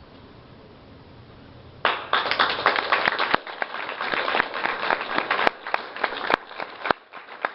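Audience applauding: after a couple of seconds of quiet room tone, many hands start clapping at once and keep going, dipping briefly near the end.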